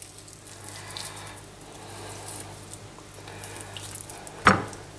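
Cooked chicken breast being torn apart by hand: quiet, irregular tearing and crackling of the meat. A single sharp knock comes about four and a half seconds in.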